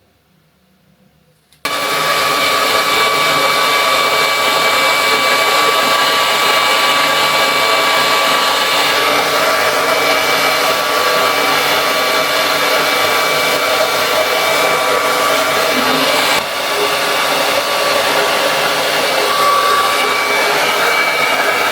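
Hair dryer switched on about two seconds in, blowing steadily with a steady whine, with a brief dip about sixteen seconds in.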